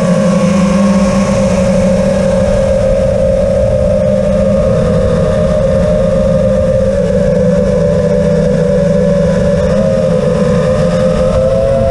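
GEPRC Elegant FPV quadcopter's brushless motors and propellers, a steady high buzzing whine heard from the onboard camera. The pitch holds with small wobbles as the throttle changes: a slight drop at the start and small rises near the end.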